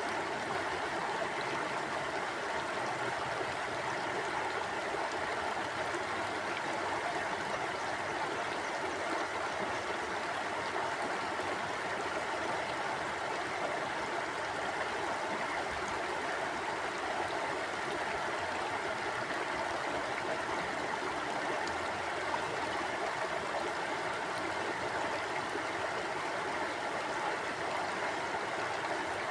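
River water flowing steadily over stones, a constant rushing and burbling with no breaks.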